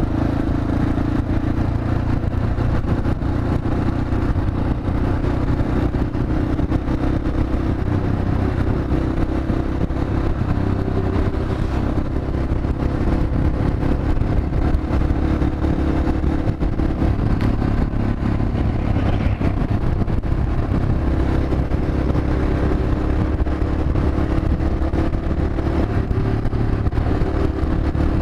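Yamaha XT 600E's single-cylinder four-stroke engine running steadily at road speed, its pitch holding fairly even.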